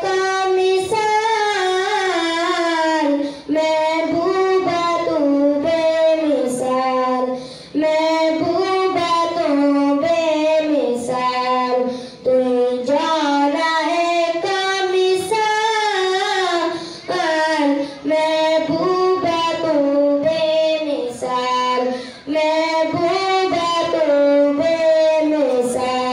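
A boy singing a naat, solo and unaccompanied, into a microphone: long, gliding sung phrases broken by short breaths every few seconds.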